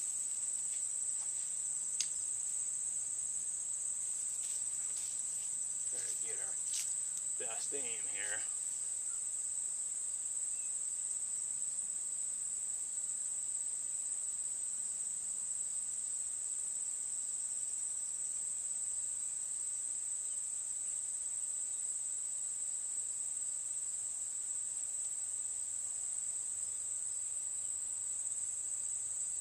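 Insects trilling steadily outdoors, a continuous high-pitched drone, with a brief pitched call about six to eight seconds in.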